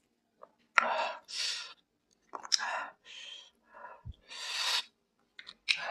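Close-miked pani puri eating: crisp puri shells cracking with sharp clicks, followed by hissy slurps and breaths, in several separate bursts.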